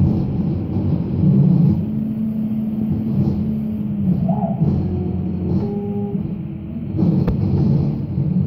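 A small CNC router's motors run steadily as it cuts vinyl. It is a low hum with short pitched tones that come in and shift in pitch every second or so as the head moves along its path.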